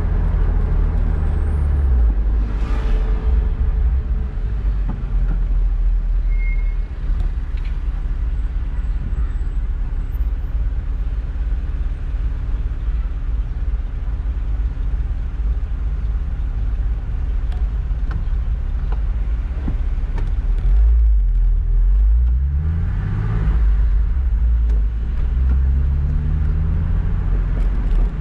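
Car engine and road noise heard from inside the car: a steady low rumble while it rolls and waits, then the engine revving up with rising pitch twice about three quarters of the way in as the car pulls away and accelerates.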